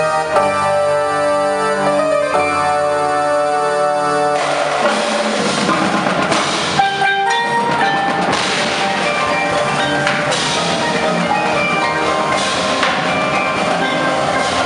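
High-school indoor percussion ensemble performing. Its front ensemble holds sustained pitched chords for about four seconds, then the marching battery's snare, tenor and bass drums come in with cymbals and fast, dense drumming.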